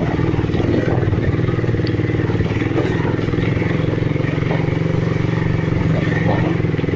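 Motorcycle engine running steadily as the bike is ridden, heard from the saddle.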